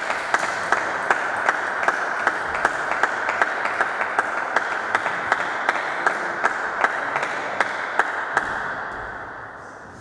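Spectators applauding, with a steady rhythm of claps about two to three a second over the general clapping, dying away near the end.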